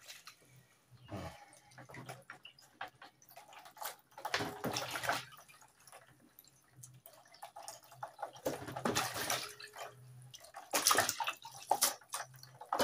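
Water splashing and sloshing in irregular bursts as raw chicken pieces are washed by hand in a plastic basin of water.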